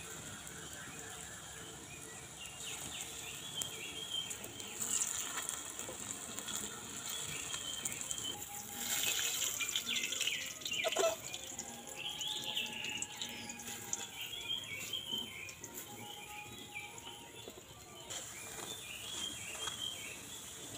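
Batter fritters (boras) frying in hot oil in a metal kadai, a steady sizzle, with a metal spatula scraping and knocking against the pan a few times around the middle. Small birds chirp in the background.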